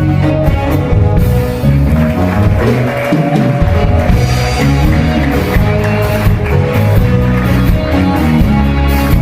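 Music playing with a steady beat, with drums and guitar.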